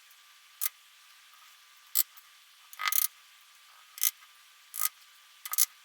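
Small metal lock parts and tools clicking and tapping as key pins are worked out of a high-security lock's plug: about six sharp, light clicks at uneven intervals, some in quick clusters.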